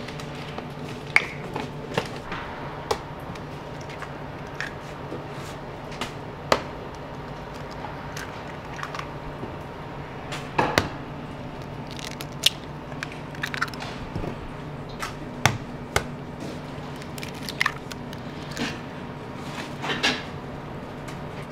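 Raw eggs being cracked on the edges of plastic tubs and dropped into chicken marinade: a long run of sharp, irregular taps and cracks, over a steady low hum.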